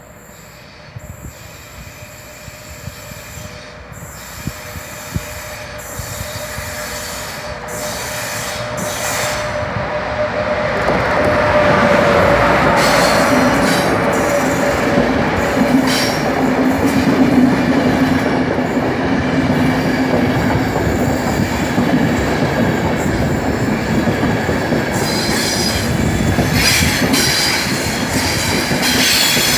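Intercity Notte passenger train, hauled by an E403 electric locomotive, approaching and passing close by. Its sound builds over the first ten seconds or so to a loud, steady rumble of coach wheels on the rails, with wheels squealing.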